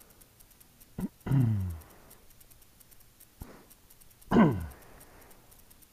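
A man's voice making two short wordless sounds that drop in pitch, like a grunt or an "ohh", about a second in and again past four seconds, with a couple of sharp clicks between them.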